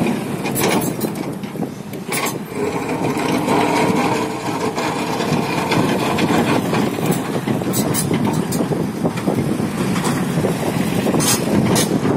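Hyundai 210 crawler excavator's diesel engine running steadily under load, with a few sharp knocks and cracks as the bucket works broken asphalt slabs.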